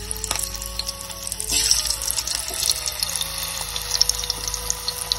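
Potato strips frying in hot oil in a steel kadai: a steady sizzle with fine crackling, swelling briefly about one and a half seconds in.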